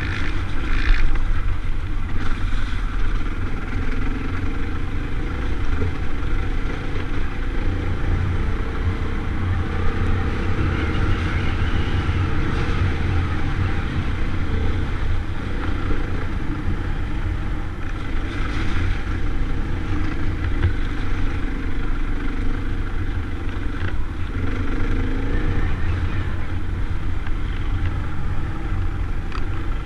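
Off-road trail motorcycle engine running steadily at low speed over a rutted, muddy track, heard up close from the rider's own bike, with a few brief rises in revs.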